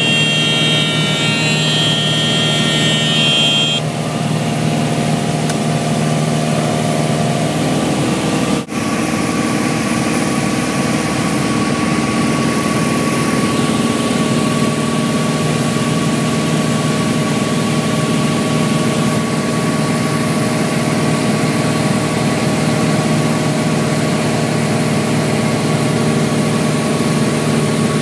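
Light single-engine propeller airplane's piston engine droning steadily, heard from inside the cockpit. A set of high steady tones sits over it and stops sharply about four seconds in. The engine note changes about eight and a half seconds in, just after a brief dip.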